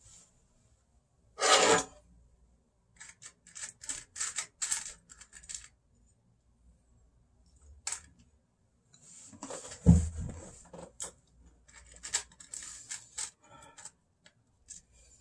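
Objects being handled close by: rustling, scraping and clicking in short, irregular bursts. A loud rasping scrape comes about a second and a half in, and a dull thump about ten seconds in.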